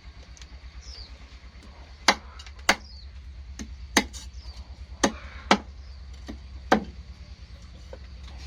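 Knife chopping on a cutting board: about nine sharp strikes at an uneven pace, starting about two seconds in.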